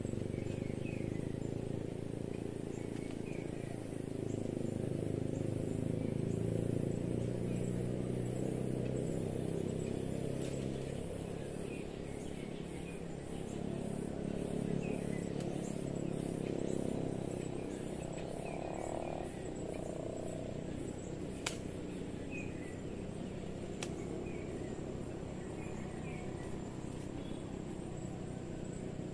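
Insects chirping in a fast, even, high-pitched pulse, with scattered faint small-bird chirps over a steady low rumble. Two sharp clicks come about two-thirds of the way through.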